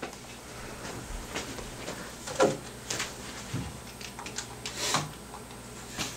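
A mobile phone being handled and its keys pressed: a scattering of small irregular clicks and soft knocks, the loudest about two and a half seconds in, over a faint steady hum.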